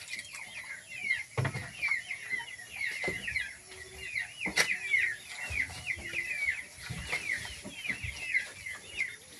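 Chickens calling, led by chicks peeping in a steady stream of short, high calls, with a few scattered knocks.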